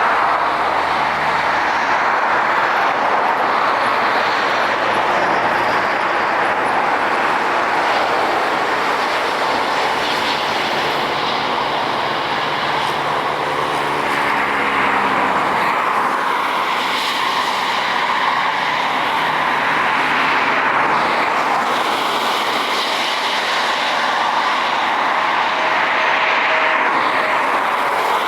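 Jet airliner taking off, its engines making a steady loud rushing noise, with a tone that glides down in pitch about halfway through as it passes.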